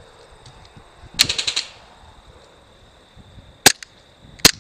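Airsoft guns firing: a quick burst of about seven shots about a second in, then two single shots near the end.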